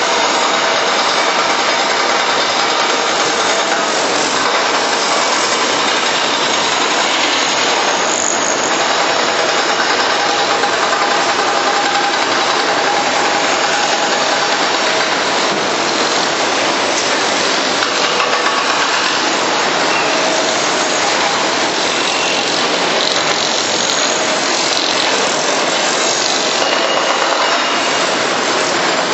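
Steady, unbroken mechanical din of heavy construction machinery, mainly a Kobelco hydraulic excavator's diesel engine running under load as it digs and loads soil.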